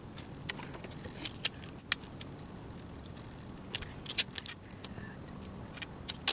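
Irregular sharp clicks and small clinks, some in quick clusters, over a steady low hum.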